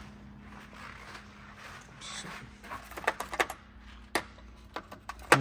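Scattered light clicks and taps of metal Torx bits being handled in a bit set, starting about halfway through, with a sharper click near the end.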